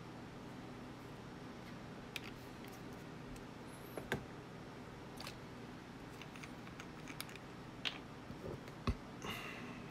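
Scattered light clicks and taps of small plastic paint dropper bottles being handled on a desk, with a louder knock near the end, over a steady low hiss.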